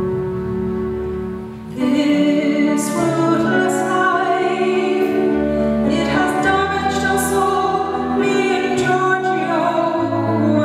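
A woman singing a slow song with a small acoustic band. Sustained held chords open, then about two seconds in the voice comes in with acoustic guitar and other instruments.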